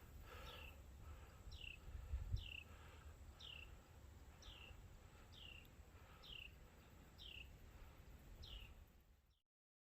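A bird repeating a short note that falls in pitch, about once a second, faint over a low rumble. The sound cuts off abruptly near the end.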